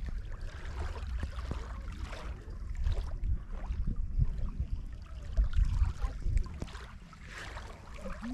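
Wind buffeting the microphone in a low, uneven rumble, with small sounds of lake water lapping.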